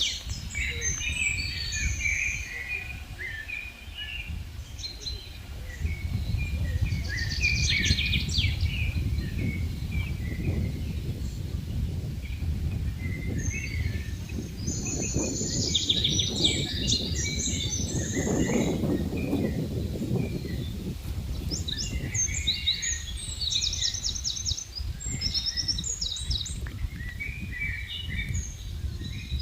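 Several songbirds chirping and trilling in a spring forest, calls overlapping throughout, over a steady low rumble of wind on the microphone that swells briefly past the middle.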